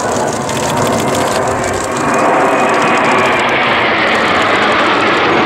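Six Kawasaki T-4 jet trainers passing overhead in formation, their twin turbofan engines making a loud, continuous jet roar that swells and rises in pitch about two seconds in.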